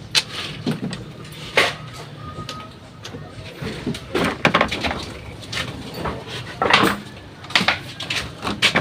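Irregular clicks, knocks and scrapes of hand work on parts or tools, with sharper knocks about a second and a half in, around four seconds in, and near seven seconds, over a low steady hum.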